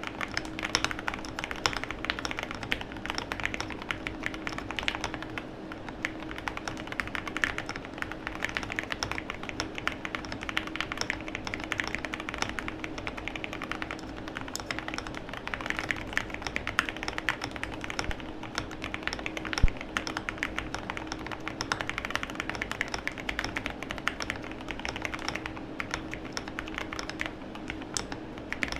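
Typing on a KBD67 Lite R3 mechanical keyboard with lubed Gateron Milky Yellow linear switches: a steady, continuous stream of keystrokes, with one sharper stroke about two-thirds through. A faint steady hum runs underneath.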